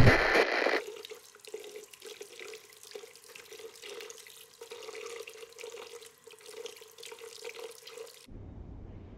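A loud burst of noise in the first second, then a tap running in a thin steady trickle into a small sink, cutting off suddenly near the end.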